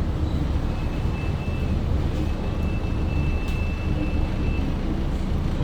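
Mercedes-Benz OC500LE city bus running, a steady low engine and road rumble, with a faint high thin whine that comes in twice.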